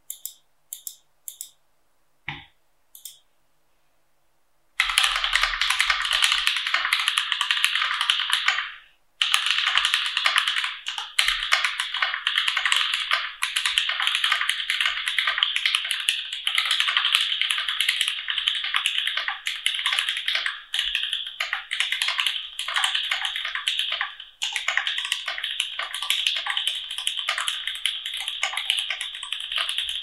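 A few single clicks, one with a low thump, then from about five seconds in, fast continuous typing on a mechanical keyboard with slightly lubed Gateron Milky Brown tactile switches in an ID80 case. The typing breaks off briefly twice.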